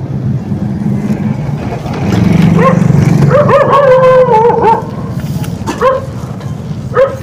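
A dog barking and howling in short wavering calls, loudest from about two and a half to four and a half seconds in, with two short barks near the end. Under it, a motorcycle with a sidecar runs past close by over a steady engine hum.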